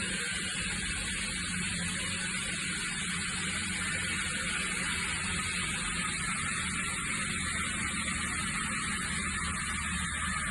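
Steady machine hum with a constant hiss over it.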